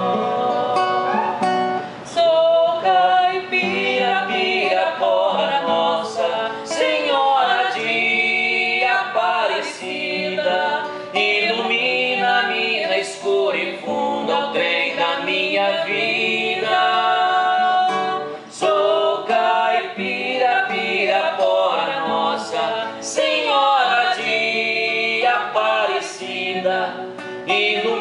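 A woman singing with live acoustic guitar accompaniment.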